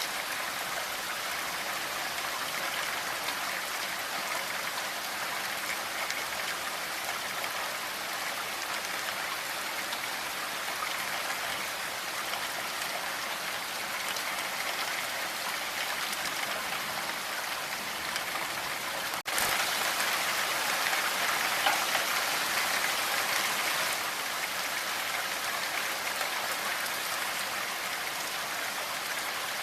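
Steady rainfall, an even dense hiss of drops. About two-thirds of the way through it jumps suddenly louder for about five seconds, then drops back to its earlier level.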